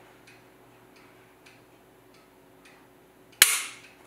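Glock 17 Gen 5 pistol's action being worked to show its trigger reset: a few faint small clicks, then one sharp metallic click about three and a half seconds in.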